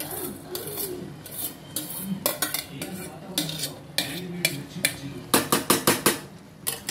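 A metal spoon clinking and scraping against an aluminium cooking pot as basmati rice is added and spread over the chicken, with a quick run of about six sharp taps near the end.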